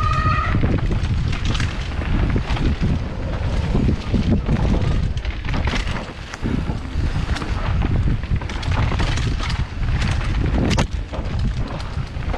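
Wind rushing over the microphone during a fast ride over rough ground, with constant rattles and knocks. A brief high-pitched squeal sounds right at the start.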